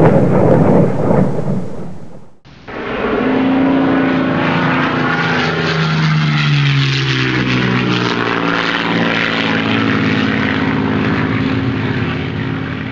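Engine noise of a Fairey Gannet's Armstrong Siddeley Double Mamba turboprop in flight, cut off abruptly about two seconds in. Then a propeller aircraft drones past, its engine pitch sliding down as it goes by.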